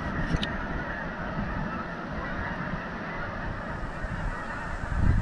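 A large flock of Canada geese honking, many calls overlapping without a break. A short click comes about half a second in, and a low thump near the end.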